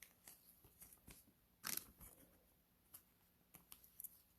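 Faint handling of trading cards: small clicks and rustles, with one louder brief scrape a little under two seconds in.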